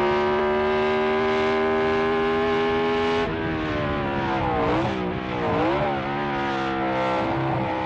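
BRM H16 Formula One racing engine at high revs. The note is held and climbs slowly for about three seconds, then the revs drop and climb again several times.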